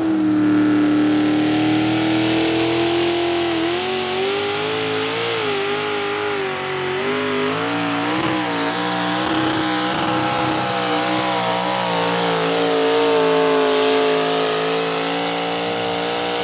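Small-block V8 engine of a modified pulling tractor held at high revs while dragging a weight-transfer sled. Its pitch climbs at first, then wavers up and down from about four seconds in as the load on the engine changes.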